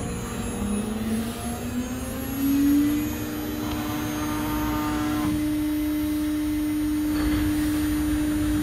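CNC router spindle spinning up to speed: a whine that rises in pitch over the first three seconds or so, then holds steady.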